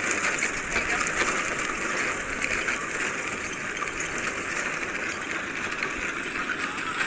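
Safari jeep driving along a rough dirt track: a steady rush of engine and wind noise with many small clicks and rattles through it.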